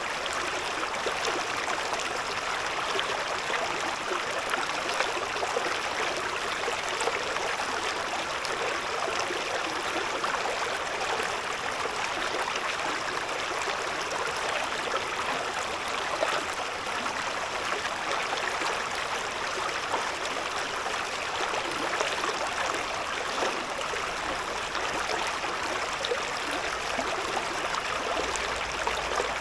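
A shallow stream babbling over stones: steady rushing and gurgling of running water.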